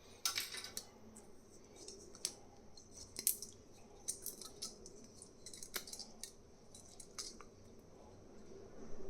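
3D-printed plastic support material being worked loose and snapped off a printed part: irregular small clicks, cracks and scrapes of plastic.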